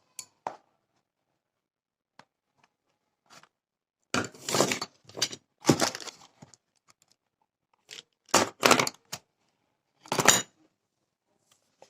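Small objects being handled and rummaged out of a pouch: rustling and light clattering in four short bursts, with quiet gaps between.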